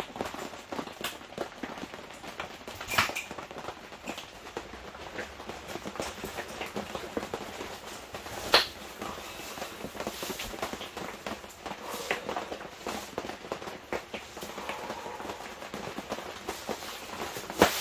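Light rain pattering on a cotton canvas wall tent, with the clicks, clacks and rustling of a folding camp chair's pole frame and fabric seat being put together and sat in. Two sharp clacks stand out, about three seconds in and just past the middle.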